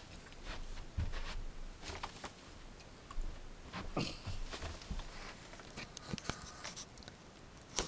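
Rustling and a few scattered knocks and thumps as a person gets up from a folding camp chair and sets a small dog down on it, with a sharp click near the end.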